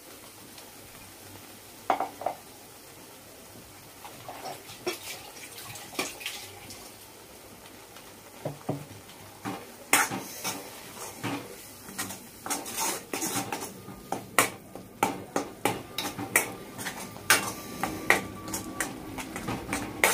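A steel spoon knocking and scraping in an iron kadhai as ground masala paste is stirred and fried in oil. Only a few separate knocks at first, then quick clinks and scrapes, several a second, from about halfway through.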